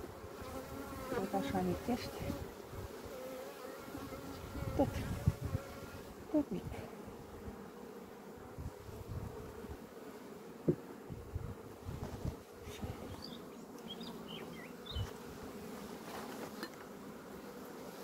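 Honeybees buzzing around an opened hive: a steady hum of many bees, with a few faint knocks scattered through.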